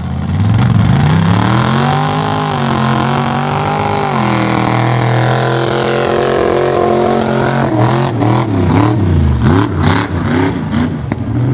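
A mud-racing vehicle's engine revs hard from a launch and holds at high revs. About two-thirds of the way through, the revs start rising and falling quickly in repeated surges, with sharp knocks and clatter among them.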